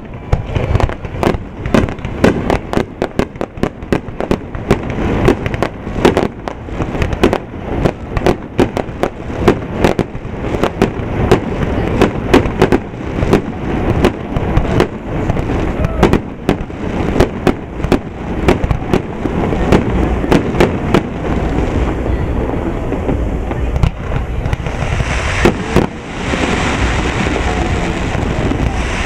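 Aerial firework shells bursting in rapid succession, many sharp bangs a second. Near the end the bangs thin out and a steady hiss takes over.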